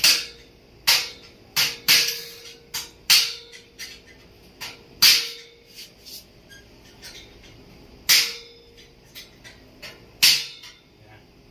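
A hammer striking a hand tool held against the bracket of a stainless steel window grill: a dozen or so sharp, irregular metallic blows, each with a brief ring. There is a pause of a few seconds about halfway through.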